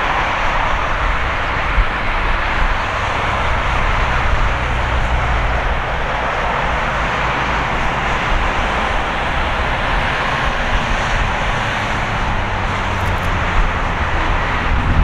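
Boeing 787-8's turbofan engines at takeoff power, a loud, steady rushing jet noise, with a low steady hum joining in partway through.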